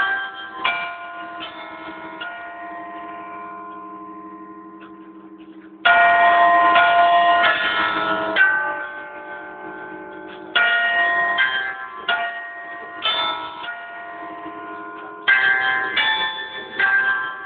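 A ring of six church bells chimed by hammers worked from a pinned chime barrel, playing a tune note by note. After a few notes the bells ring on and fade for about three seconds, then louder groups of notes follow, each bell ringing on after it is struck.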